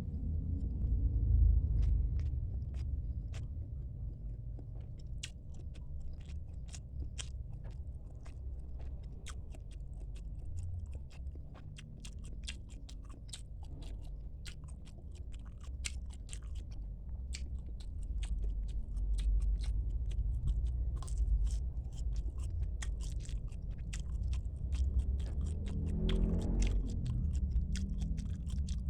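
A person chewing and biting food close to the microphone, with many small sharp crunches and wet mouth clicks, over a steady low rumble.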